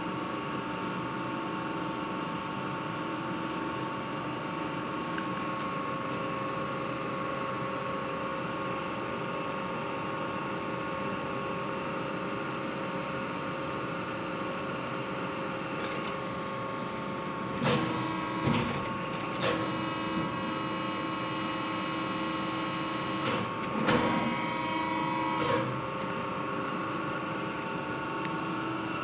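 LVD PPEB hydraulic CNC press brake running at idle with a steady mechanical hum. About two-thirds of the way in, and again a few seconds later, two short spells of louder whirring and clunks come from the machine moving.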